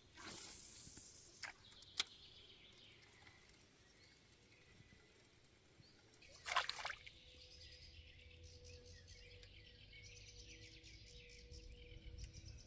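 Faint outdoor ambience, with two sharp clicks about two seconds in and a short burst of noise about six and a half seconds in.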